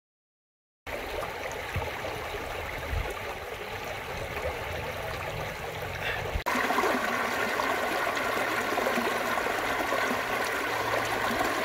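Shallow stream running over rocks in small rapids: a steady rush of water. It starts abruptly about a second in, and just past the halfway point it cuts to a louder stretch of rushing water.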